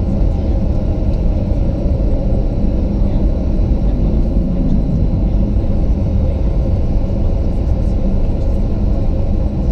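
Cabin noise of a Boeing 737-900 taxiing: a steady low rumble from its CFM56 engines at taxi power and the wheels rolling over the taxiway.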